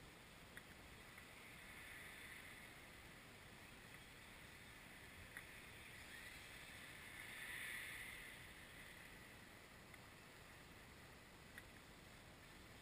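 Near silence: faint hiss, with a faint high whine that swells twice and a few faint clicks.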